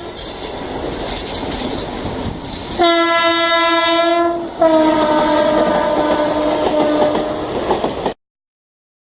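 WAP7 electric locomotive's air horn sounding two blasts over the rumble and clatter of the train's ICF coaches on the rails. The second blast is louder and slightly lower, sliding down a little in pitch. Everything cuts off suddenly about eight seconds in.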